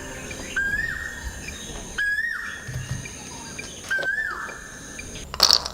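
A bird calling outdoors: a whistled note that rises quickly, holds, then drops, repeated four times about every one and a half to two seconds. A brief, loud rustling noise comes near the end.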